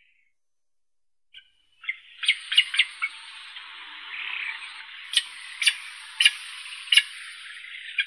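Field recording of Eurasian spoonbills: after about a second and a half of silence, a hissing wash of sound sets in, broken by a string of sharp clicks about half a second apart.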